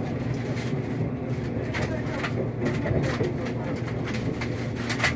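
Limited express train running, heard from inside the passenger car: a steady low rumble, with irregular sharp clicks of the wheels over rail joints, the sharpest near the end.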